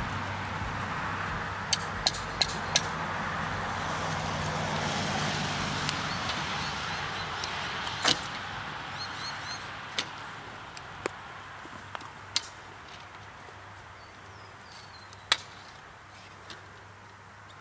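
Irregular sharp clicks and knocks of the Safetrax rail-barrier parts being fitted onto their posts, over a steady rush of distant traffic that slowly fades. A few faint bird chirps.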